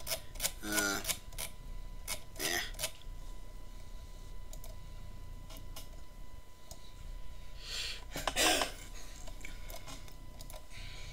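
Sparse computer mouse clicks and scroll-wheel ticks close to the microphone, with a couple of short mumbled vocal sounds near the start and a breathy vocal sound about eight seconds in. A faint steady high whine sits underneath.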